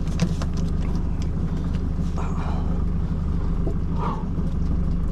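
Outboard motor idling steadily, with a few short clicks and handling sounds on top.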